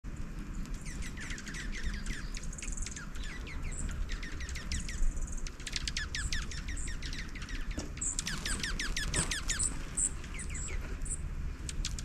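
Several small songbirds calling and singing over one another: fast runs of quick downward-sliding notes and short high chips, over a steady low rumble.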